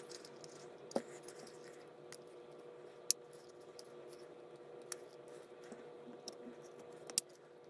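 Plastic shell of a DJI FPV remote controller being handled and pressed together, giving a few sharp isolated clicks and taps as the housing halves fit, over a faint steady hum.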